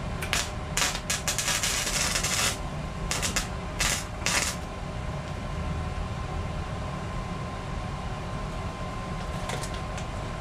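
Stick (MMA) welding arc crackling in several short bursts over the first four and a half seconds, the longest about a second, over a steady hum.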